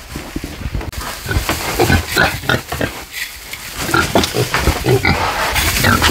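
Pigs grunting in many short, irregular calls, with a steady hiss from a hand pump sprayer misting insect repellent over them from about a second in.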